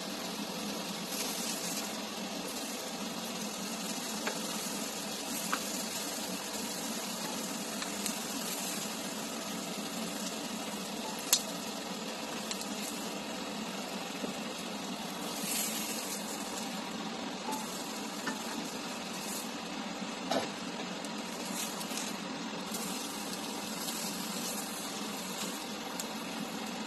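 Chicken breasts sizzling in a ridged grill pan, a steady hiss broken by a few sharp clicks of tongs against the pan, the loudest about eleven seconds in.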